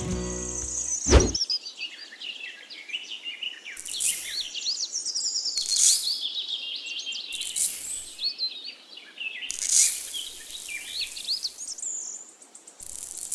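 Birds chirping and twittering throughout, with five short hisses of dry sand poured from a metal bowl into a plastic pond mould. A sharp falling sweep about a second in.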